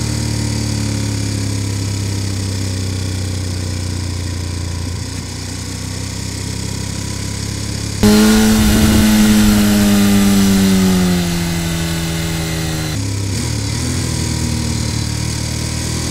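Sport motorcycle engine running at steady road speed. About halfway in it suddenly becomes louder with more wind hiss and its pitch eases down over a few seconds as the revs fall, then it drops back to the quieter steady running near the end.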